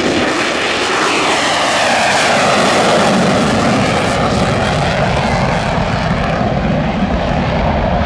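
F-35A Lightning II's Pratt & Whitney F135 turbofan running loud in afterburner as the jet takes off and climbs away, with tones sliding down in pitch in the first few seconds.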